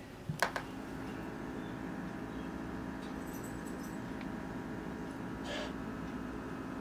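A steady electrical hum with several fixed tones, as room tone in a kitchen. There is a short click about half a second in and a faint brief sound about five and a half seconds in.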